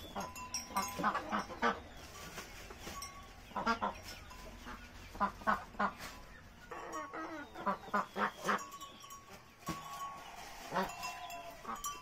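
Farm animals calling: short pitched honking calls, several in quick succession, in bursts every second or two.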